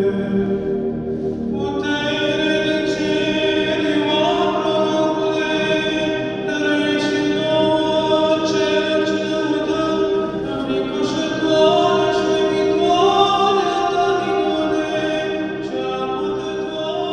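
Romanian Orthodox liturgical chant: voices sing a slowly moving melody over a steady held drone note.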